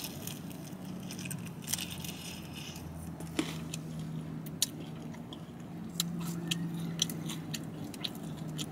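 Chewing and crunching on extra-crispy fried chicken wings: scattered small crackles and clicks over a steady low hum.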